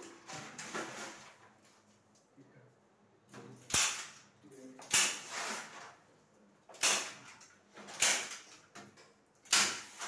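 Hook-and-loop (Velcro) tape of a mosquito net being pressed by hand onto the matching strip on a window frame: five short, sharp scratchy strokes a second or two apart, starting a few seconds in, with softer rustling of the net before them.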